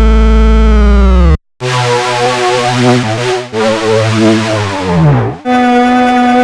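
Synthesizer presets from Ableton's Meld synth auditioned one after another. First a loud, bass-heavy held tone bends down in pitch and cuts off. After a brief silence comes a noisy, warbling patch that sweeps down near its end, and a new steady held tone starts about five and a half seconds in.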